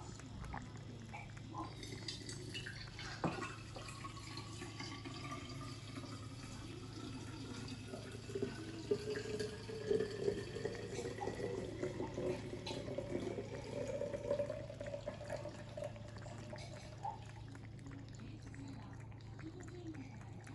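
Norwegian Forest Cat lapping water from a shallow saucer: a long run of small, quick wet clicks from its tongue. Under it there is a steady low hum, and a tap runs in the background with a tone that rises slowly.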